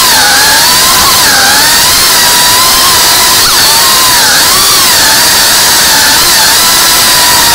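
FPV drone's motors and propellers whining loudly throughout, the pitch dipping and rising a little every second or so with throttle changes, heard from a camera on the drone itself.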